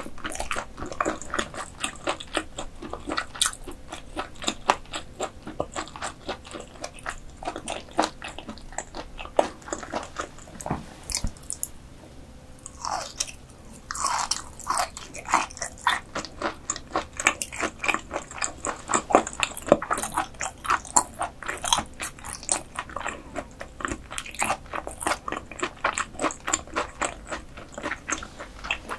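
Close-miked chewing of croaker: rapid, wet, sticky mouth clicks and smacks, several a second, with a short pause about twelve seconds in.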